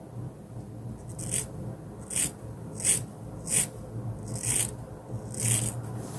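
Hair-cutting scissors snipping through a lock of long hair held between the fingers: six short, crisp cuts about a second apart.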